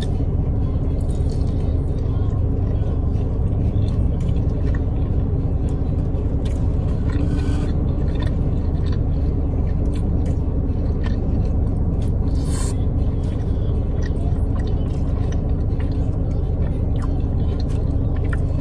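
Steady low rumble of road and engine noise inside a car's cabin, with scattered small clicks and scrapes of eating: chewing and a plastic fork or container.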